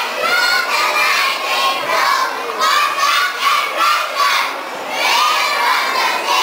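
A chorus of children's voices shouting lines loudly in unison, in short phrases with brief dips between them.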